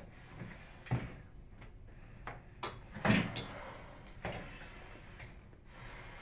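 Frigidaire microwave door being worked on its rehung hinges: a few clicks and knocks as it moves and its latch catches, the loudest about three seconds in.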